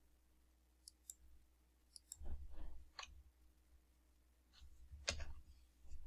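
Computer mouse clicking: a few short, faint, sharp clicks, with duller low thumps around two seconds and five seconds in.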